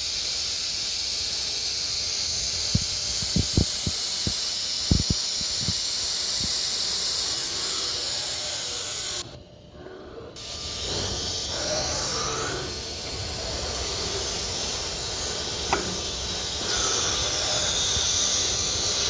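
Compressed air hissing steadily as the CNC router blows its tool clean before automatic tool-length measurement, with a few light clicks along the way. The air cuts off suddenly about nine seconds in, leaving quieter machine noise, and a fainter hiss starts again near the end.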